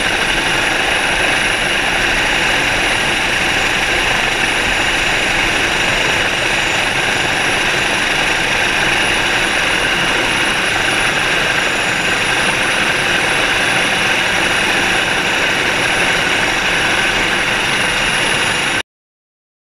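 Helicopter in flight heard from on board: a loud, steady rush of rotor and turbine noise with a thin high whine over it, which cuts off abruptly near the end.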